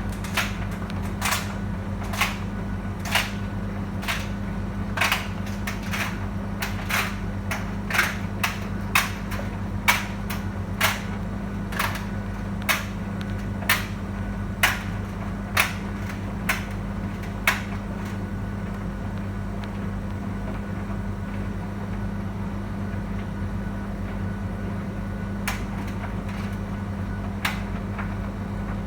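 Beko tumble dryer running with a steady hum and sharp knocks about once a second as the drum turns. The knocks stop for several seconds past the middle, then return near the end.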